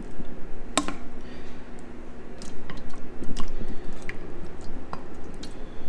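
Thick meat sauce being spread and pushed around the bottom of a glass baking dish with a utensil: wet squishing with small scrapes and taps, and one sharper tap about a second in.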